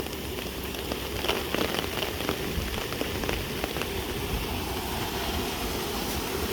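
Steady rush of water outdoors, with scattered small ticks of drops.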